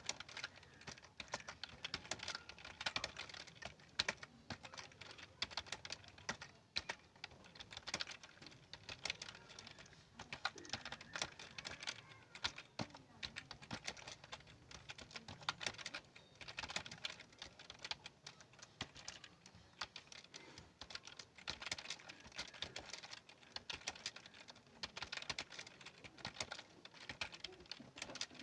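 Fast typing on a keyboard: a steady, irregular run of many light key clicks, several a second, with brief pauses between bursts.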